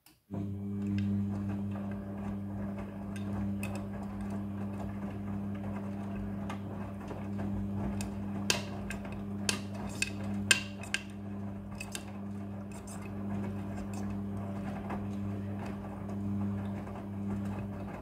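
Midea front-loading washing machine turning its drum in the wash tumble: a steady motor hum that starts about a third of a second in and stops near the end, with the wet clothes sloshing round. Several sharp clicks and knocks come in the middle.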